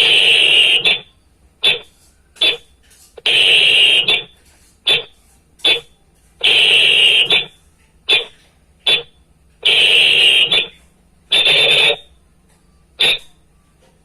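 A whistle blown as a signal pattern of long blasts, each about a second, and short blips, mostly one long followed by two shorts, repeated about four times.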